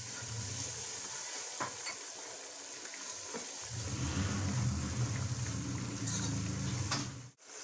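Nihari spice paste sizzling and frying in a non-stick pot just after a splash of water, with a spatula stirring and scraping through it; the water is cooking off as the masala is fried so it doesn't burn. A low hum runs underneath, and the sound drops out for a moment near the end.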